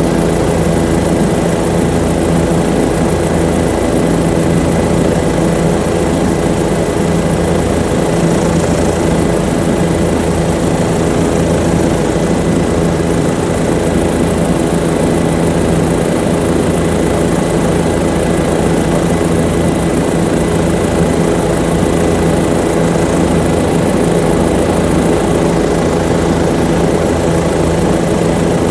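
Aircraft engine running steadily in flight, heard from on board: a constant loud drone made of several steady tones.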